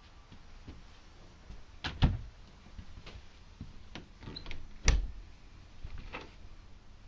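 Wooden cabinet and interior doors of a travel trailer knocking and thumping shut: two dull thumps about three seconds apart, with lighter clicks and knocks between.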